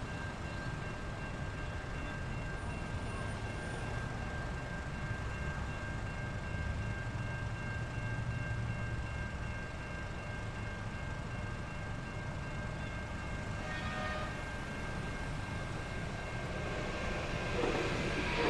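Electronic level crossing bells at a tram crossing ringing as a steady high tone over the low rumble of waiting road traffic. The bells fade out about three-quarters of the way through, and near the end the rumble of an approaching tram grows louder.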